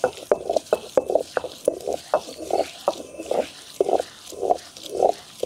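Soaked urad dal being ground in a hand-turned stone grinder: the cylindrical stone rolls round the stone basin with a rhythmic grinding, about two strokes a second, with sharp clicks of grains cracking under the stone.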